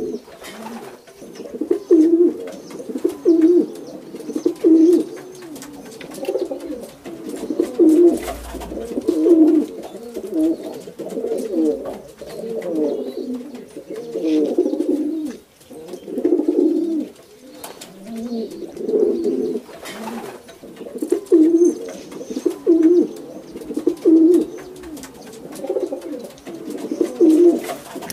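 Racing pigeons cooing again and again: low coos coming about once a second in runs, with short pauses between runs.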